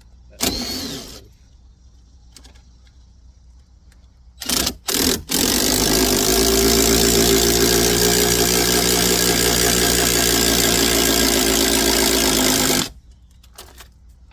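A powered jack or power tool motor raising the car at its lift point: two short blips about four and a half seconds in, then a steady run of about seven and a half seconds that stops abruptly.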